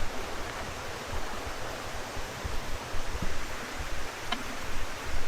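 A small waterfall, water falling and rushing steadily over rocks.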